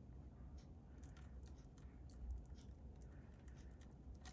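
Faint scattered clicks and light rustles of a power cord and its plastic plug being handled, over a low steady hum.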